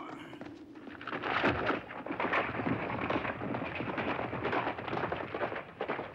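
A horse galloping: a dense, fast patter of hoofbeats that swells up about a second in and keeps on.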